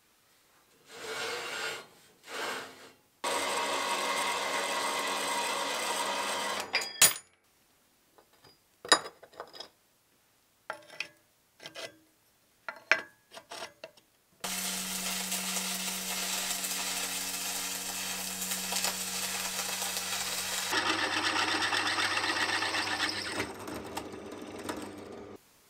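Metalworking machines in turn: a horizontal metal-cutting band saw, two short bursts and then a steady cut of about four seconds, ending in a sharp metallic clank. A string of short bursts and clicks follows. Then a bench drill press runs with a steady motor hum and, for the last few seconds, drills into steel.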